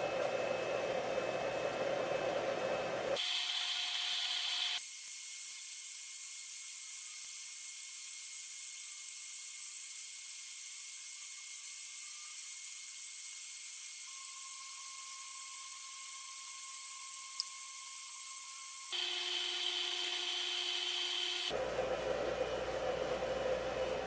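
Steady machine whir of a power inverter and the appliances it is running under a load of about 300 watts. Its tone changes abruptly several times and thins to a high hiss from about 5 to 19 seconds.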